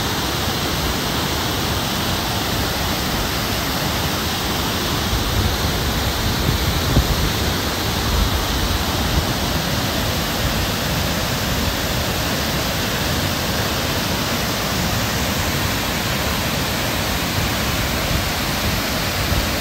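Nugget Falls, a large waterfall, rushing steadily: an even, unbroken hiss of falling water, with a few low bumps near the middle.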